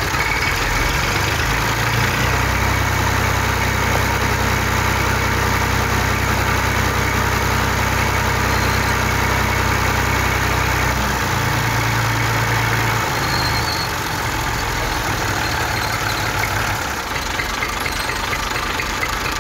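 A vehicle engine idling: a steady low hum over a constant hiss. The hum shifts in pitch about eleven seconds in and dies away about seventeen seconds in.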